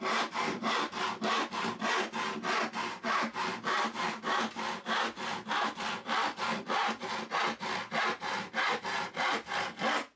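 Freshly sharpened, rip-filed hand saw cutting through a wooden board in quick, even strokes, about three to four a second, stopping abruptly at the end. The saw is cutting cleanly, 'singing'.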